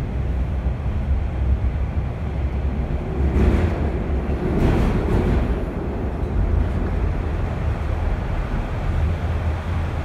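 Interior of a TTC Toronto Rocket subway train running between stations: a steady low rumble of traction motors and wheels on the rails, with a louder rush of wheel and track noise about three to five seconds in.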